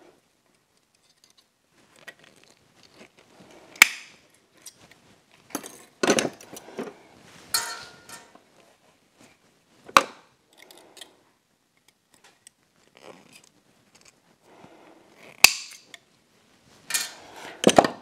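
Metal hand tools clinking and rattling in a steel tool-chest drawer as they are handled, with four sharp metallic clicks.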